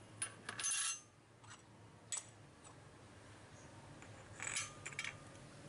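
Light clicks and clinks of small hard parts being handled. There is a longer scraping rustle just under a second in and another about four and a half seconds in.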